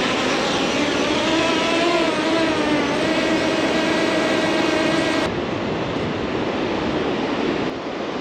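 Quadcopter drone's propellers whining as it lifts off carrying a fishing sinker on a line, rising a little in pitch as it climbs, then holding a steady hover. About five seconds in the sound cuts to a steady rushing noise with no whine.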